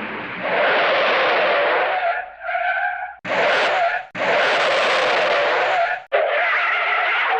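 Hanna-Barbera cartoon skid sound effects: screeching, tire-squeal-like skids played back to back, about five separate ones, each cut off abruptly before the next starts.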